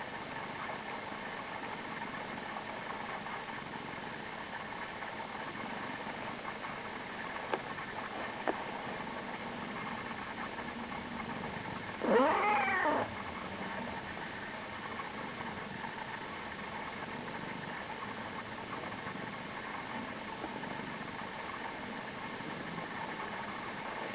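A pet's single squeak, a bit under a second long, rising then falling in pitch, over a steady background hum.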